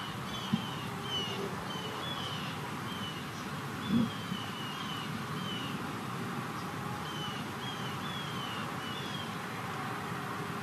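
A bird calling: a string of short falling chirps, often two or three close together, over a steady outdoor hush. There is one soft low thump about four seconds in.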